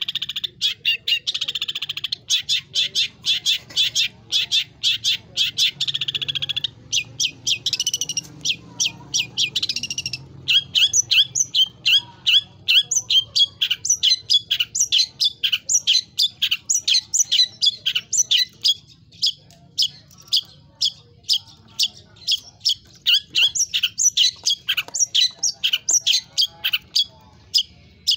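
Long-tailed shrike singing: a buzzy, unbroken high trill for the first few seconds, then a fast run of short, sharp, repeated notes that keeps going, its song filled with other birds' phrases.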